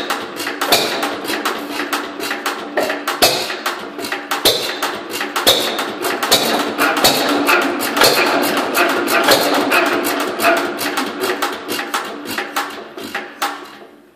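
Economy hit-and-miss stationary gas engine running briefly on starter fluid: rapid clattering clicks with heavier knocks every second or so. It fades away near the end as the engine dies and the flywheels coast down.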